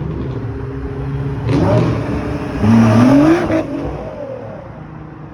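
Sports cars driving past, one accelerating with a rising engine note about two and a half seconds in, loudest there, then fading away.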